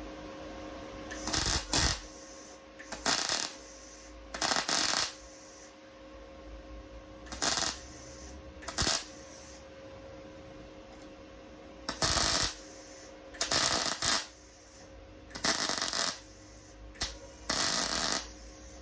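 MIG welder laying short plug welds in thin car body steel: about ten bursts of crackling arc, each under a second long, with a steady low hum between them.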